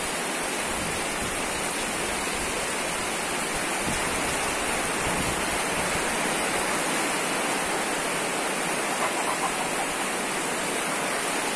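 Heavy rain falling in a steady, even hiss, with some low wind rumble during the first half.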